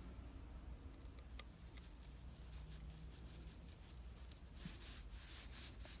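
Faint scratchy ticks and light scraping of a small screwdriver turning a tiny screw back into a plastic propeller hub.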